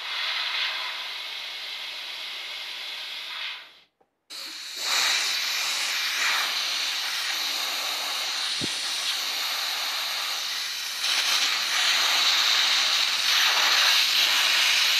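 Compressed air rushing out of an air compressor in a steady hiss. The hiss cuts off abruptly about four seconds in, then resumes and grows louder toward the end.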